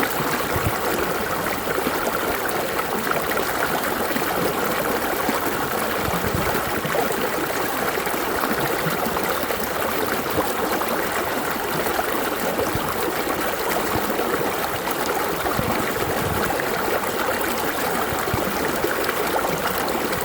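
Running water flowing steadily, an even rushing sound with no breaks.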